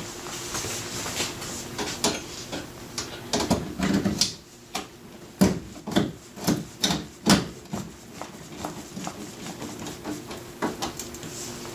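Irregular clicks and knocks of a screwdriver, screws and metal oven-door parts being handled while the door's handle screws go back in, a cluster of sharper knocks in the middle, over a faint steady hum.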